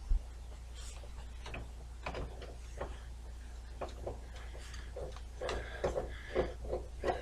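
Computer hardware being handled inside a desktop PC case. A sharp knock comes right at the start, then scattered light clicks and rattles that grow busier near the end, over a steady low hum.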